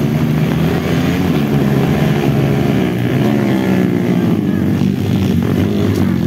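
Engines of several enduro dirt bikes running and revving together as the riders come through, their pitches wavering up and down.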